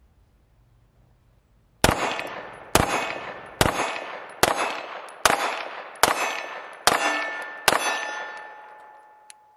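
Grand Power X-Caliber pistol fired eight times at an even pace, about a shot every 0.85 seconds starting about two seconds in. Each shot is followed by a metallic ringing that fades over most of a second, with a ringing tone lingering after the last shot.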